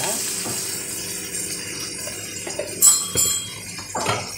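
Onions, peanuts and green chillies sizzling in oil in a pan as a steel spoon stirs them, scraping and clinking against the pan. The sharpest clink comes about three seconds in.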